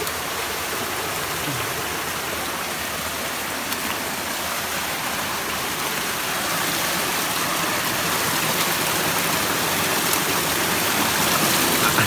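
Steady rush of running water from a waterfall and mountain stream, growing slightly louder about six and a half seconds in.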